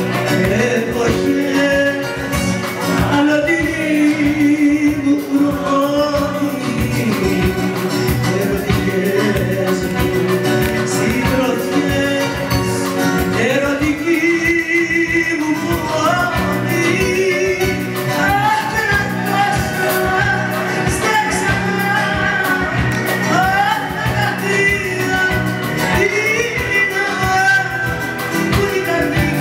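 Live Greek laïkó song: a woman singing into a microphone over a band with electric bass and drums.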